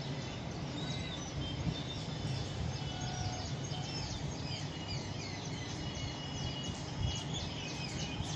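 Many small birds chirping in quick, short, falling notes, thicker toward the end, over a steady low rumble of outdoor noise.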